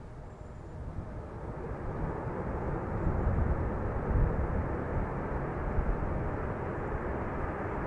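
Twin-engine jet airliner at takeoff power, starting its takeoff roll. The jet engine noise grows steadily louder.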